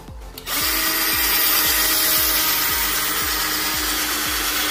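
Cordless drill boring a hole into a wooden frame board with a wood drill bit; the motor starts about half a second in and runs steadily.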